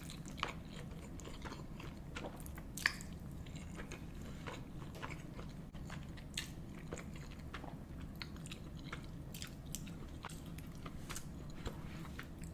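Close-miked chewing of a big mouthful: wet smacking clicks and small crunches, irregular, with one sharper click about three seconds in, over a steady low hum.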